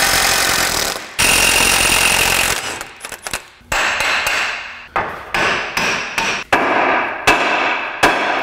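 A pneumatic tool runs continuously for about two and a half seconds, with a brief break near one second. It is followed by about ten hand-hammer blows on the steel front suspension and hub of a Honda Element, each one sharp and ringing, spaced irregularly.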